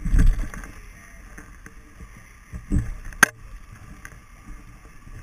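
Dull thumps and a sharp click while a gaffed fish is handled at a boat's rail, over steady boat and water noise. A heavy low thump comes at the start and another about two and a half seconds later, with the single sharp click just after it.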